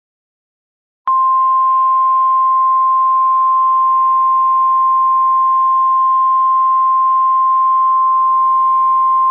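NOAA Weather Radio 1050 Hz warning alarm tone: one loud, steady, unbroken beep starting about a second in. It signals that a severe weather warning message is about to be broadcast.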